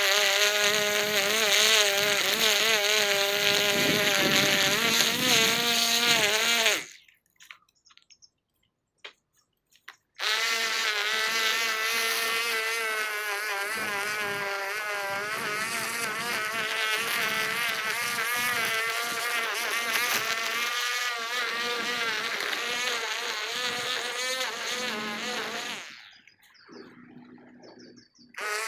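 Small two-stroke string trimmer engine running at high revs, a steady whine whose pitch wavers as the throttle and cutting load change. It cuts out about seven seconds in, is back about three seconds later and runs until near the end, then gives one more short burst.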